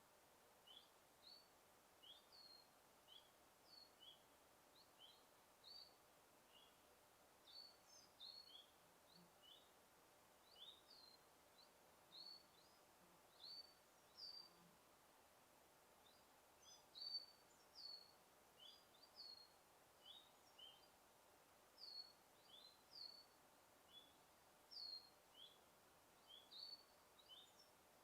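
Faint forest ambience: small songbirds giving short, high, falling chirps, irregularly about two a second, over a soft steady background hiss.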